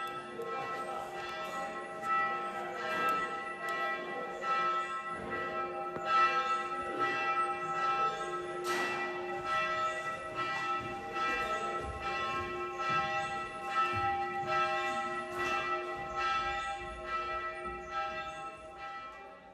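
Church bell rung over and over, each stroke landing before the last has died away, so the ringing runs on without a break. It fades out near the end.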